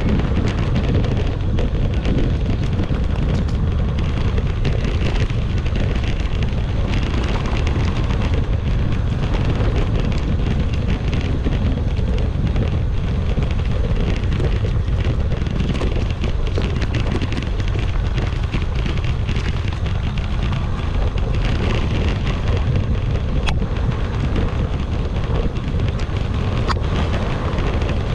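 Wind buffeting the microphone of a handlebar-mounted action camera on an electric mountain bike ridden along a dirt forest track, over a steady rumble from the tyres and frame, with scattered small clicks and rattles.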